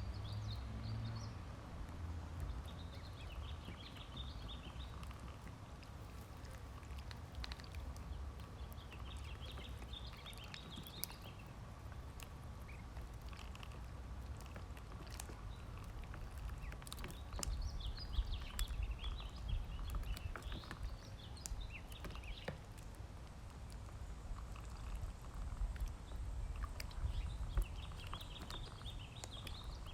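Ducklings peeping in bursts of high chirps every several seconds, with scattered sharp clicks between them.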